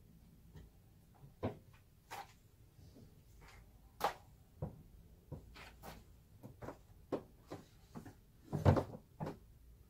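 Books and papers being pulled from a shelf and handled: scattered knocks and rustles, with a louder thump near the end.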